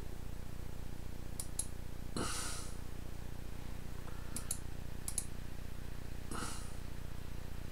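Computer mouse clicking in quick pairs of clicks, a few times, over a steady low electrical hum. Two short breaths near the microphone, about two and six seconds in.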